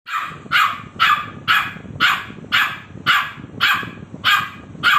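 Adult pit bull barking over and over at a steady pace, about two barks a second.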